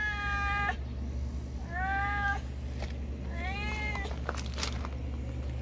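Stray cat meowing three times: a long meow that ends within the first second, then two shorter, arching meows about two and about four seconds in.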